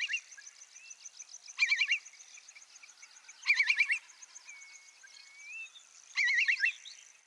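Bird calls: four short warbling bursts, about two seconds apart, with a few thin gliding whistles between them, over a steady high insect trill.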